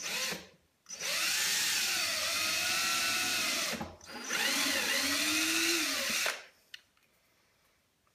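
Small power drill with a 1.8 mm bit drilling pilot holes for brass hinge screws in a wooden box, in two runs of about three and two seconds, its pitch dipping and rising as the bit loads and frees.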